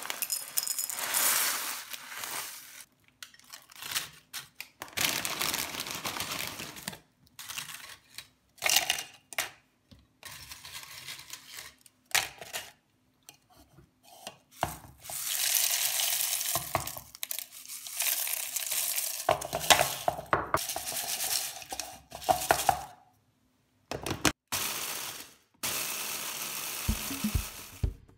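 Kitchen handling sounds in stops and starts: a plastic bag of corn flakes crinkling as the flakes pour into a glass dish, and nachos crunching as they are crushed in an electric mini chopper, in longer stretches through the middle.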